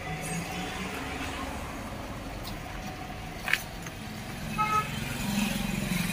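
Steady low rumble of background road traffic, with a sharp click about three and a half seconds in and a short vehicle horn toot a second later.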